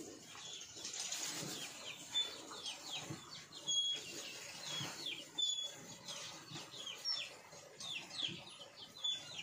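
Small birds chirping over and over: short, high chirps that fall quickly in pitch, a few each second, with an occasional brief high whistled note.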